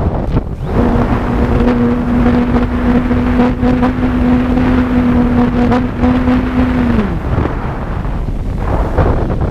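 Strong wind buffeting the microphone. From about a second in, a steady low hum runs for roughly six seconds, then drops in pitch and dies away.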